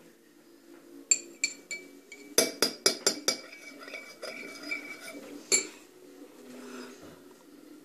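Metal spoon stirring in a small porcelain bowl, clinking against its sides with a bright ring: three clinks about a second in, a quick run of about six a second later, and one more past the middle.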